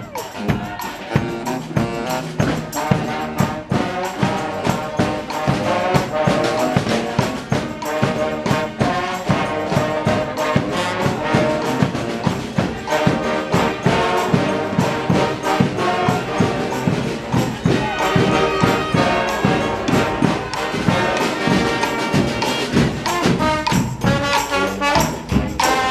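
Brass street band playing a tune: trumpets and trombones in full ensemble over a steady drum and percussion beat.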